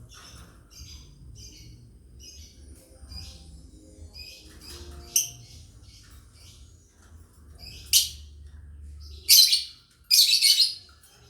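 Lovebirds chirping in a quick run of short high chirps, broken in the second half by several loud, harsh screeches, the longest near the end.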